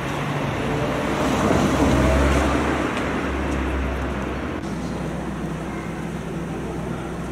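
A motor vehicle passing on the street, its rumble swelling to a peak about two seconds in and then fading, over steady traffic noise.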